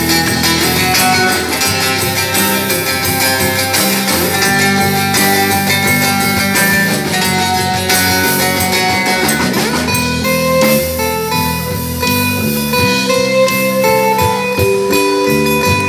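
Live band playing an instrumental passage led by guitars, with no singing. About halfway through the texture thins to held lead-guitar notes over the backing.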